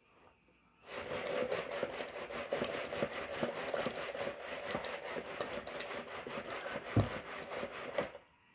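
Washing machine running, a dense rattling clatter that starts abruptly about a second in and stops just before the end, with one louder knock near the end.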